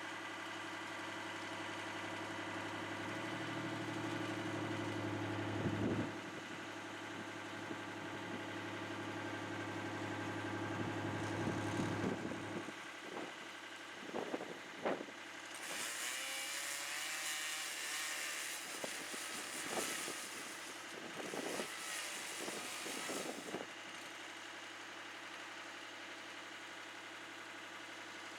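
An engine running steadily. Its lower hum drops away a little under halfway through, a few sharp knocks follow, and then comes a spell of loud hissing noise lasting several seconds.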